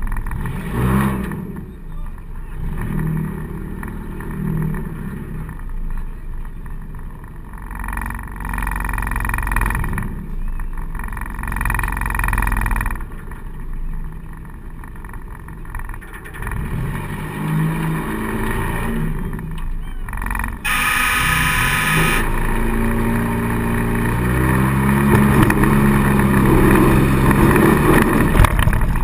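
A four-cylinder demolition-derby car's engine, heard from inside the car, revving up and down through the heat, with stretches of noisier clatter. A brief shrill tone sounds about two-thirds of the way through, and the engine revs climb near the end.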